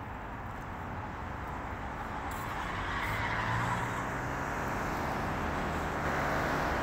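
Road traffic: vehicles running along the street, a steady engine and tyre hum that grows louder over the first three seconds and then holds.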